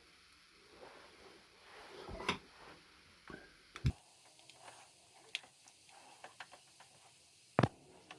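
Scattered light clicks and taps of parts and tools being handled, with louder knocks about two seconds in, about halfway, and a sharp knock near the end.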